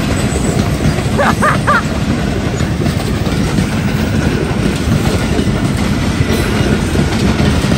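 Pakistan Railways passenger coaches rolling past close by: a steady, loud noise of the train's wheels running on the rails. A few brief high, wavering tones come about a second and a half in.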